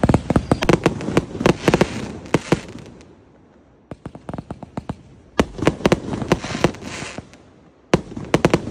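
Multi-shot ground firework cake (Vietnamese Defence Ministry 'BQP' fireworks) firing in volleys of rapid sharp cracks and crackling pops. The first volley dies away about three seconds in. After a short lull come scattered pops, then a dense volley about five and a half seconds in and another near the end.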